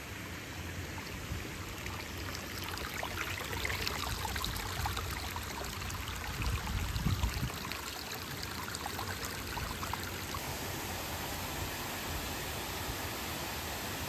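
Creek water running and trickling over rocks: a steady rushing with fine splashy patter, and a brief low rumble about seven seconds in. Toward the end the sound turns into a smoother, steadier rush of water pouring over a low dam.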